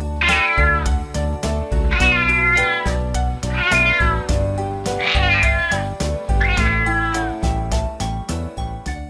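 A cat meowing five times, each meow falling in pitch, over children's backing music with a steady beat.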